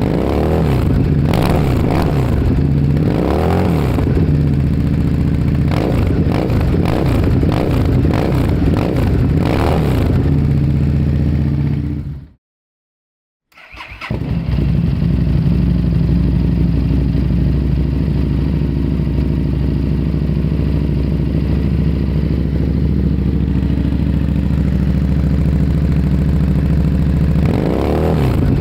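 Engine with a loud exhaust revved in repeated rising and falling blips, fading out to about a second of silence, then idling steadily before it is revved again near the end.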